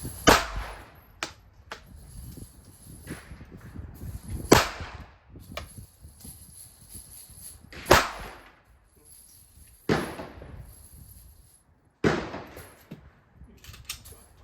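Pistol gunshots fired slowly one at a time: five loud sharp cracks spaced a few seconds apart, each with a short echoing tail, and fainter cracks between them.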